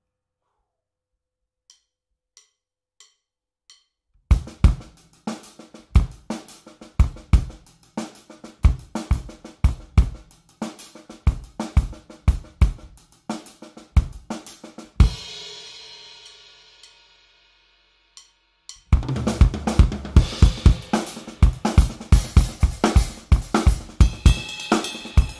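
Drum kit being played. After four faint clicks, a beat of kick, snare and hi-hat starts about four seconds in and ends in a cymbal crash that rings out. After a short pause the drumming starts again, busier and with more cymbal.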